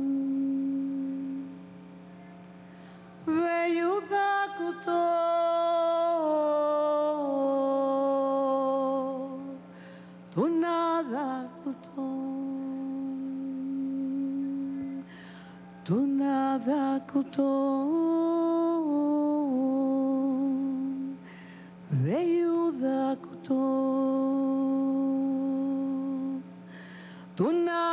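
A woman singing an indigenous chant solo into a microphone: long held notes in phrases about every six seconds, each opening with a rising slide. A steady low hum runs underneath.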